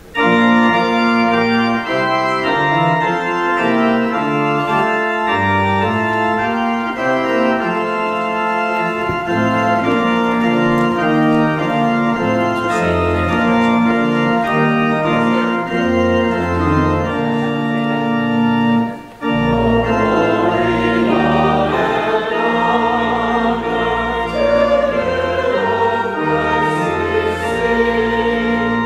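Pipe organ playing a hymn or prelude in sustained chords, starting suddenly. It pauses briefly about two-thirds of the way through, and then the organ resumes with a small choir singing along.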